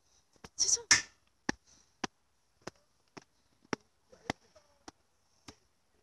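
Footsteps on a dry-leaf forest trail: a string of sharp, separate crackles about every half second, loudest about a second in.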